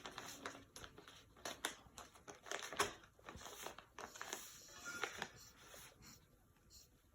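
A cat pawing and nosing at a paper bag of catnip treats, the bag crinkling and rustling in irregular short bursts.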